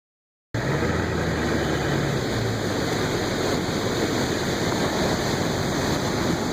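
Floodwater rushing steadily through a roadside ditch that has filled up to the level of the road. It starts about half a second in.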